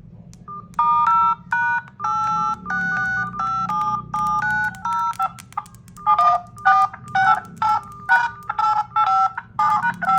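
Phone dialer keypad tones (DTMF) as a number is tapped in, each key a short two-note beep. About ten held beeps come in the first half, then a quicker run of shorter ones.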